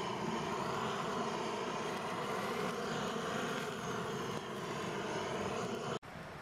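Handheld butane blowtorch flame hissing steadily, then cutting off suddenly about six seconds in.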